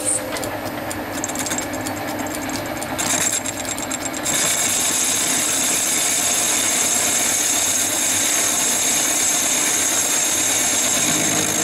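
Small metal lathe running with a cast model wheel spinning in its four-jaw chuck while the tool takes a facing cut across the wheel's back. About four seconds in the sound grows louder and a steady high-pitched whine joins the machine hum.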